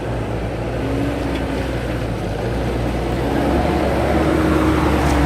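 Mahindra MM 550 jeep's engine running on an off-road trail, a steady low drone whose pitch rises a little and grows louder in the second half.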